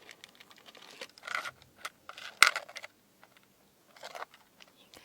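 Close-miked crunching and crackling of fruit crisps: a run of small clicks with a few short crunchy bursts, the sharpest and loudest about two and a half seconds in.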